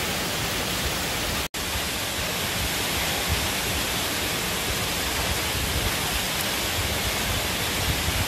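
Teneriffe Falls, a 150-foot waterfall, rushing in a steady, even roar of falling water. The sound cuts out for an instant about one and a half seconds in.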